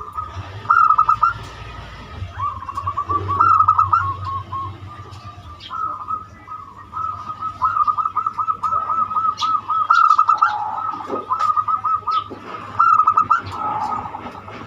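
Zebra dove (perkutut) cooing: a string of phrases, each a quick run of pulsing coo notes, some short and some long and even, in the flowing 'banyumili' voice type that keepers play as a lure call. Short high chirps sound between the phrases.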